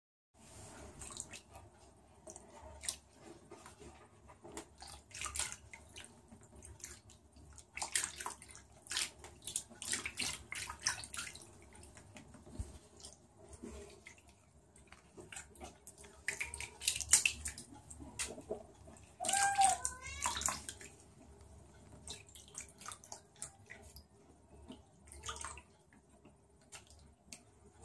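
Shallow bathwater splashing and sloshing irregularly as a hairless cat wades and paws through it, with a short high-pitched call about two-thirds of the way through.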